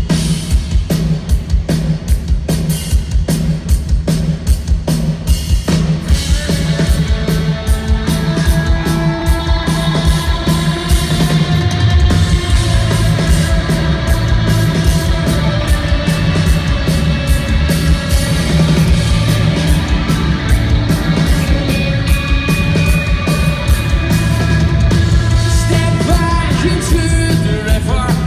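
Loud live rock band playing through a concert PA: driving drums and distorted guitars, with a sung vocal line coming in about six seconds in.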